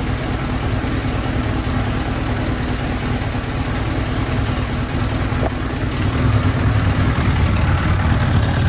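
Kawasaki ZX-7R motorcycle's 750 cc inline-four engine idling steadily, getting a little louder from about six seconds in.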